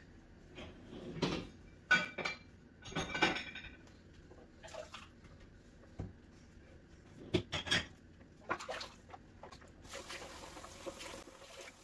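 Dishes and utensils clinking in a kitchen sink as they are washed by hand, a string of sharp clinks and clatters. About ten seconds in, tap water starts running.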